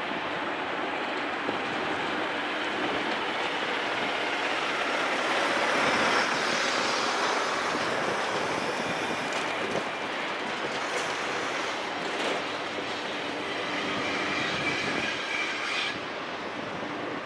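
BNSF intermodal freight train of trailers on flatcars rolling past: a steady rumble and rattle of steel wheels on the rails. High wheel squeal rises in briefly toward the end.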